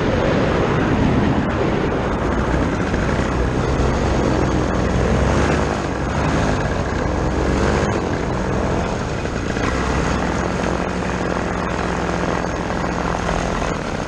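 A paramotor trike's two-stroke Vittorazi Moster engine and propeller run through a steady rush of wind on the microphone as the trike comes in low, touches down and rolls across grass. About ten seconds in, the engine settles to a steadier, slightly quieter note.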